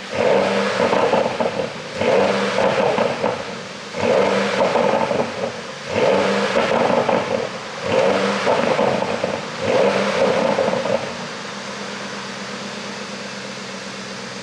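Porsche Panamera GTS twin-turbo V8 on its stock exhaust, revved six times about two seconds apart, then settling to a steady idle near the end. The ECU is tuned to make the exhaust pop and crackle on the overrun as the revs drop.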